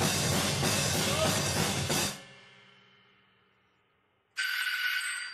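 Drum kit played hard, with cymbals, snare and bass drum. It stops abruptly about two seconds in and the cymbals ring away into quiet. Near the end a sudden bright ringing tone with several pitches starts and begins to fade.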